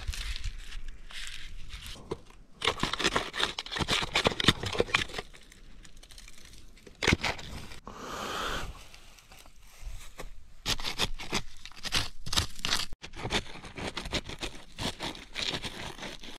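Dry, rotten wood being broken apart and handled, making irregular crunching, tearing and scraping cracks. Near the end, a hand scrapes and digs into dry, stony soil.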